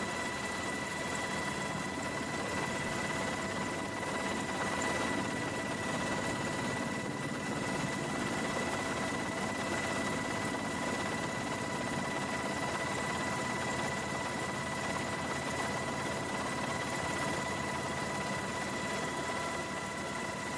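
Steady engine noise of an aircraft heard from on board, with a constant high whine over an even hiss.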